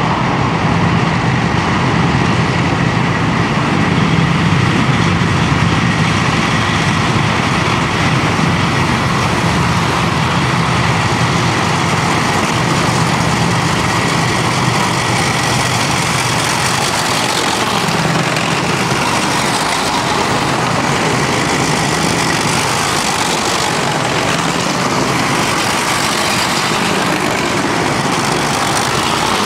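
Steady engine noise from a column of tracked armoured vehicles driving along a road toward the listener. The higher noise of the column grows from about two-thirds of the way in as they come close.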